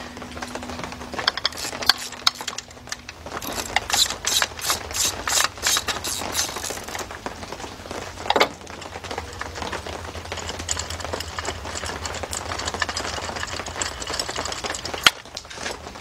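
Hand ratchet with a 16 mm spark plug socket clicking in quick runs as a spark plug is unscrewed from the cylinder head, with a steadier rasping stretch later on.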